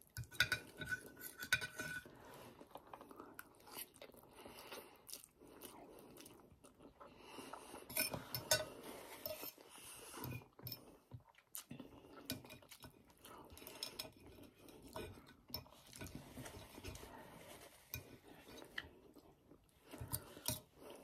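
A metal fork clinking and scraping on a ceramic plate as palabok rice noodles are wound up, with chewing in between. The clicks come irregularly, a few louder ones about a second in and around eight seconds in.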